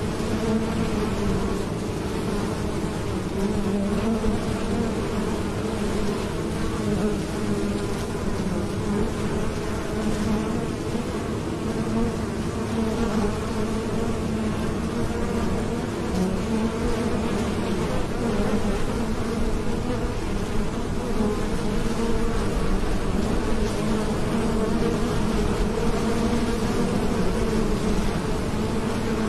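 Many honeybees buzzing as they fly in and out of a hive entrance: a steady, slightly wavering hum.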